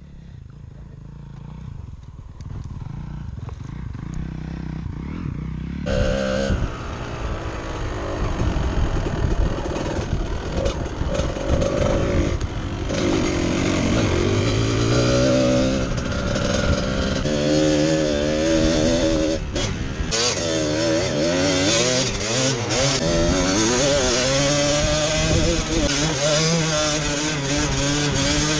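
Trail motorcycle engine being ridden and revved, its pitch rising and falling with the throttle. It is faint at first, grows louder over the first few seconds and runs loud from about six seconds in.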